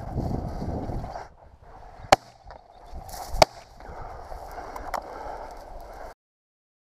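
Two shotgun shots about a second and a half apart, after rustling steps through thick field plants; the sound cuts off suddenly near the end.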